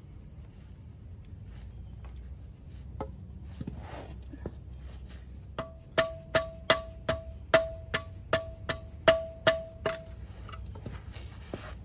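A dead blow hammer strikes a flathead screwdriver wedged into the seam of a 2002 Ford Focus oil pan, driving it in to pry the stuck pan loose. A couple of light knocks come first, then about eleven quick blows, roughly two and a half a second, starting about halfway in. Each blow leaves a short metallic ring.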